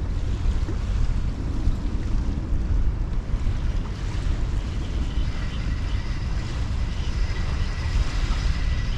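Wind buffeting the microphone, a heavy low rumble that runs on unevenly. From about five seconds in a faint, steady high whine joins it.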